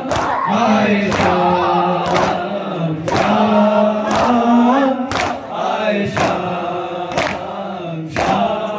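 Men's chorus chanting a noha together, held notes rising and falling, with loud unison chest-beating (matam) slaps about once a second keeping the beat.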